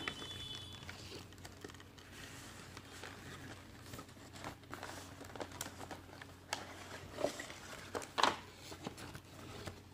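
Cardboard and plastic packaging rustling and crinkling as a boxed speaker is slid out of its printed sleeve and unpacked by hand, with a few sharper scrapes and taps in the last few seconds.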